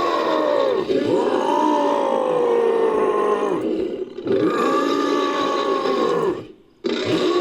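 Ape-like creature sound effect: a series of long, pitched roars, each lasting a second or more, with a brief silence about six and a half seconds in.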